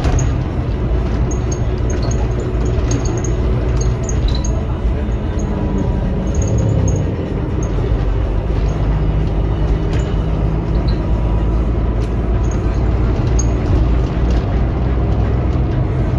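Volvo B9R coach's rear-mounted six-cylinder diesel engine and road noise heard from inside the cabin while underway, a steady low drone. The engine note shifts and dips briefly about halfway through, with light rattles from the interior.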